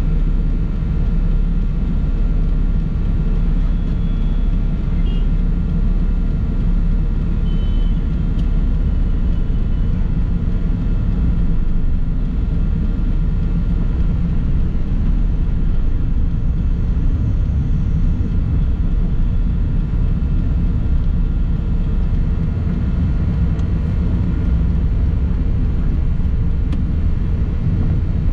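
Steady low road rumble of a moving vehicle, heard from on board as it drives along a city road.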